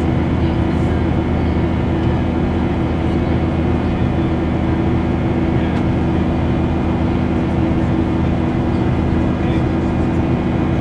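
Cabin noise of a Boeing 737 climbing after takeoff: the jet engines' steady drone with a constant low hum, heard inside the cabin at a window seat over the wing.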